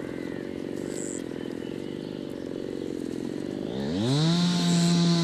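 A small engine running low and steady, then about four seconds in it revs up quickly to a high, steady whine and holds there.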